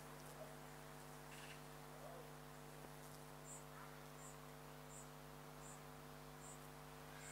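Faint steady electrical hum. About halfway through, a run of about six short high chirps begins, evenly spaced roughly two-thirds of a second apart.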